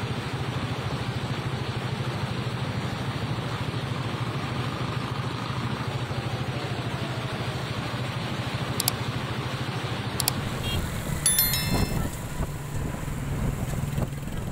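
Muddy floodwater rushing across a causeway, over the steady low hum of an engine running close by. After about ten seconds this gives way to road traffic, with motorcycles passing.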